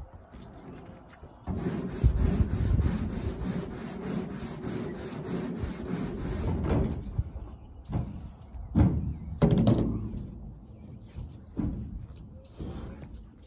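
Hand caulking gun being worked along the hatch flange on the roof: a steady run of evenly spaced ticks for about five seconds, then several knocks and thumps.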